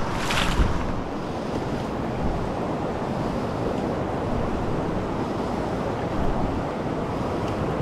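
Steady rushing of river water, an even noise with no breaks, with a short brighter burst of noise just after the start.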